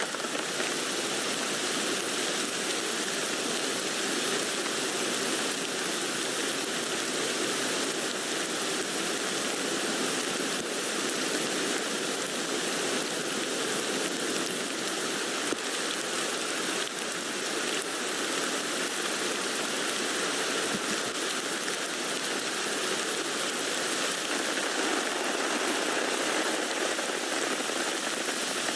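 Steady rain falling on a tent.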